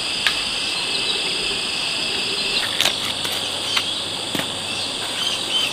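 Insects droning steadily at a high pitch, with a few sharp clicks and knocks.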